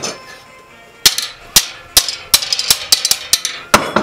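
Sharp, ringing metal-on-metal strikes as a steel rod is worked against the anvil horn. There are about eight of them, starting about a second in and coming two to three a second.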